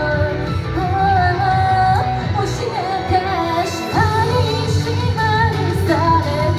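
A solo female voice singing a pop song over a backing track, holding notes with vibrato.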